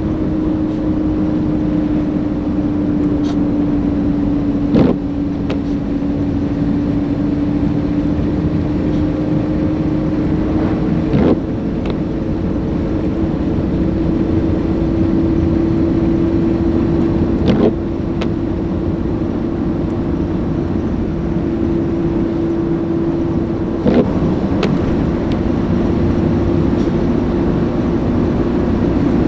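Car being driven: a steady engine and road drone with a hum that slowly rises in pitch, and a short knock about every six seconds.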